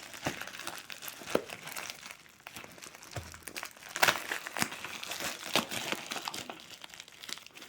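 Parcel packaging crinkling and tearing as it is opened by hand, in irregular crackles with a few sharper snaps.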